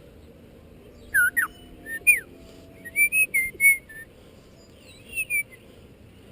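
African grey parrot giving loud whistles. A couple of swooping notes come about a second in, then a quick run of four short notes around three seconds, then a falling pair near the end.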